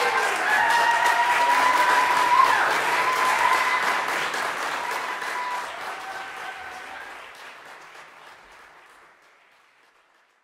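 Audience applauding in a concert hall, with a few long high cheers ringing over the clapping in the first half. The applause thins out from about four seconds in and has almost died away by the end.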